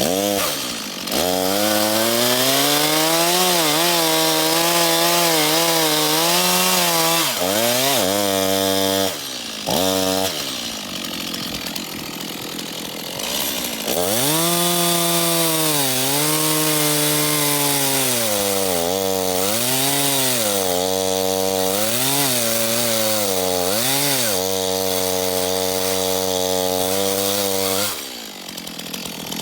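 Stihl MS 251 two-stroke chainsaw running at high revs while cutting through a tree trunk. Its pitch sags again and again as the chain bites into the wood and climbs back. It drops quieter for a few seconds midway, then runs loud again and stops near the end.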